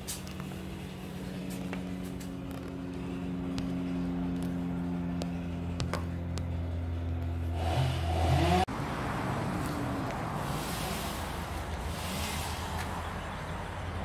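An engine idling steadily, then revving up with a rising pitch about eight seconds in before cutting off abruptly; after that a rougher, noisier running sound carries on.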